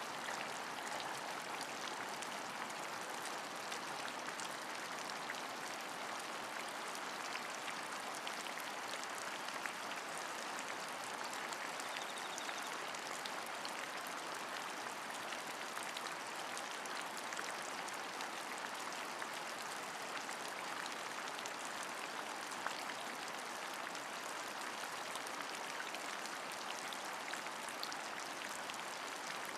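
Steady rain falling, an even hiss with fine drop ticks scattered through it.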